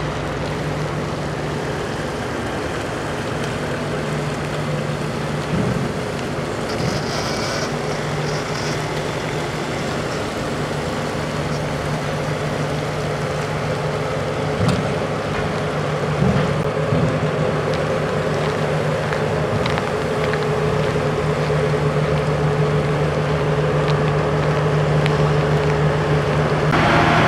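Engine running with a steady low hum, growing slightly louder near the end, with a couple of brief knocks midway.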